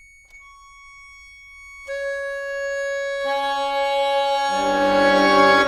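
Concert accordion holding long sustained notes: a single high note, then lower notes entering one by one, about every second and a half, stacking into a loud, dense, dissonant chord that swells to its loudest near the end.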